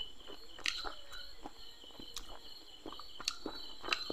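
Close eating sounds of fried masala fish being picked apart by hand on a plate and chewed: a handful of sharp clicks and small smacks. Behind them runs a steady high-pitched chirring of insects.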